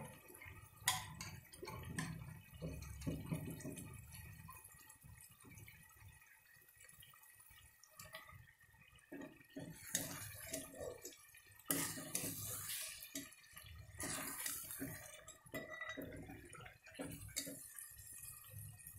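A steel ladle stirring mutton curry in a steel pot: wet sloshing of the gravy with scattered clinks and scrapes of the ladle against the pot, busier in the second half.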